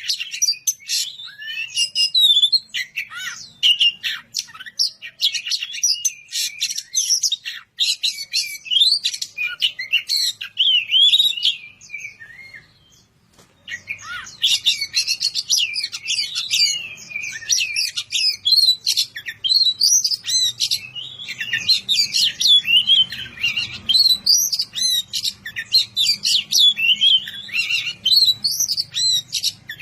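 Oriental magpie-robin (kacer) singing a fast, varied song of chirps and whistles, with a pause of about a second roughly halfway through. It is the loud, full song the bird gives when calling out a rival.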